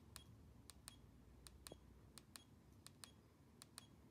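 Faint, crisp clicks of the TONOVET Plus tonometer's central push button being pressed repeatedly with a thumb, each press a quick double click, about five presses in a row as the language menu is stepped through.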